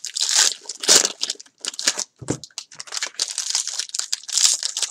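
Plastic wrappers of Bowman Jumbo baseball-card packs crinkling and tearing as the packs are handled and ripped open, a dense, irregular run of crackles and rustles.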